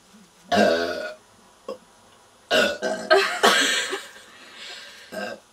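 Young women burping loudly after drinking fizzy Irn Bru: one short burp about half a second in, then a longer burp from about two and a half seconds in that fades away near the end.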